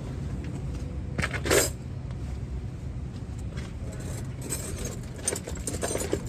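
Metal hand tools clinking and rattling as they are picked through, with a few sharp clinks about a second in and a run of lighter clinks near the end, over a low steady hum.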